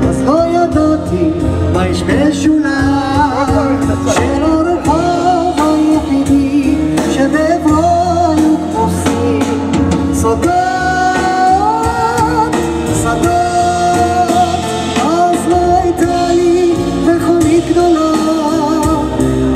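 Live band playing amplified: a male vocalist singing over a Roland stage piano, upright bass and drums.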